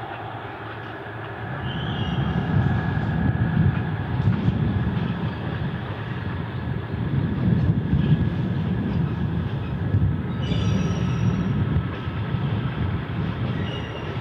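Tulloch diesel rail car running as it approaches around a curve, a steady low diesel rumble that grows louder from about a second and a half in. Brief high squeals come about two seconds in and again about ten seconds in.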